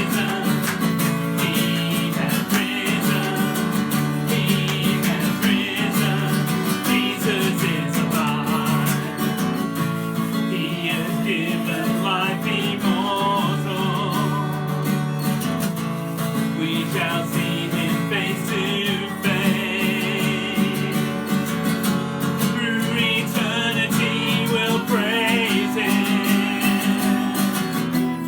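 Music with acoustic guitar strumming and a steady accompaniment.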